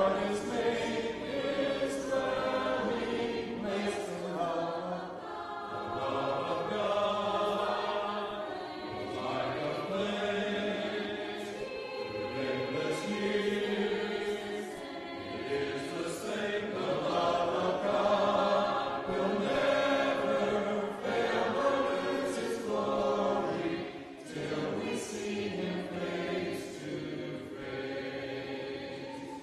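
A church congregation singing a hymn together without instruments, many voices in unison and parts holding long sung notes.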